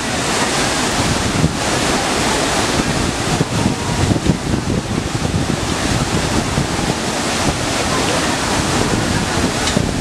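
Dassam Falls in rainy-season flood, its muddy water rushing steadily over the rock ledges in one continuous, unbroken rush, with wind buffeting the microphone.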